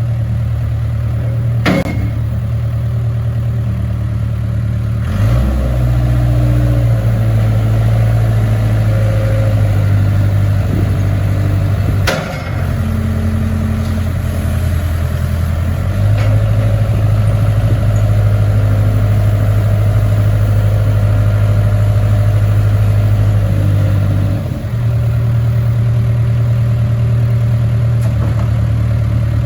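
Case backhoe's diesel engine running steadily, its pitch stepping up and down several times as the revs change. There are two sharp knocks, about two seconds in and again near the middle.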